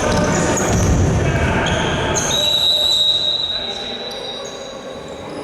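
Futsal players' shoes squeaking on an indoor court floor, with ball and foot thuds and shouting players in a large hall. About halfway through, a single high steady squeal starts and is held for about three seconds.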